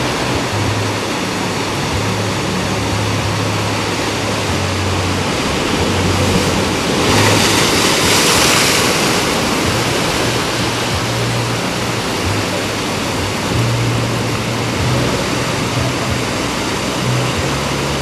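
Sea surf washing over shoreline rocks: a steady hiss of moving water, with one wave surging louder about seven seconds in, over a low rumble that comes and goes.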